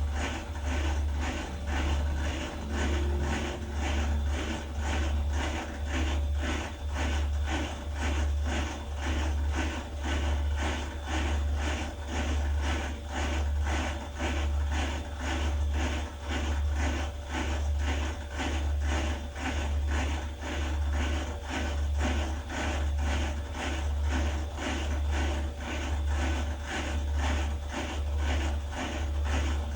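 Beko WDX8543130W washer-dryer running with a rhythmic knocking and rattling, about three beats every two seconds over a low pulsing hum, one of the weird noises this machine makes.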